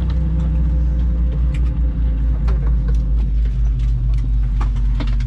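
Airbus A321 cabin hum while the aircraft is parked at the gate: a steady low drone with a few tones that drop in pitch about two to three seconds in. Scattered clicks and knocks from the cabin come through it.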